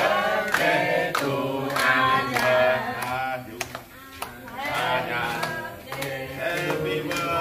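A group of people singing a birthday song together, clapping in time about twice a second.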